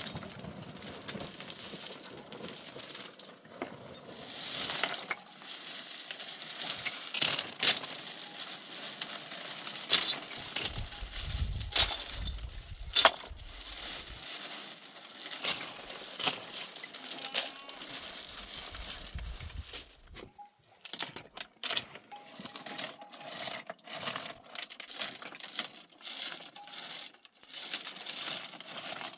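Irregular hard clinks and knocks of objects striking one another, many in a row, with a short quiet spell about two-thirds of the way in.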